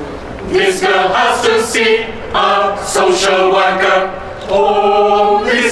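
Choir singing slow held notes, the sustained chords broken by sharp hissing consonants.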